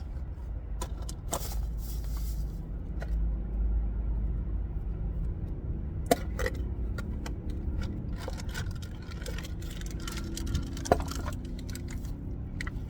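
Metal car parts being handled and rummaged through in a parts box, with a few sharp clicks and clinks over a steady low rumble.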